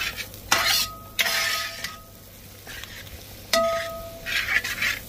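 Beef being dry-fried in a pan and stirred with a spatula: several scraping strokes over a low sizzle, with a brief ringing tone after some strokes.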